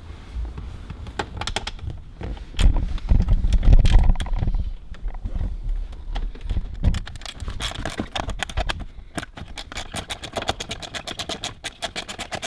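Socket ratchet clicking as two 7 mm bolts are backed out of a car's centre-console trim panel, in a fast, even run in the second half. Earlier there are loud knocks and scraping from handling the tool and trim.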